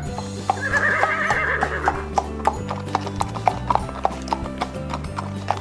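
Horse hoof clip-clop sound effect, an even trot of about three hoofbeats a second, with a horse whinnying over the first couple of seconds, laid over steady background music.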